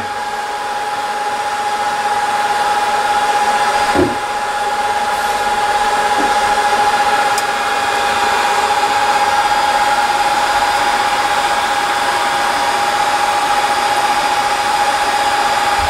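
ZC-C2 BGA rework station's hot-air heaters and blowers running while reflowing a motherboard BGA chip near peak temperature: a steady rushing air noise with a steady whine. A single short knock about four seconds in.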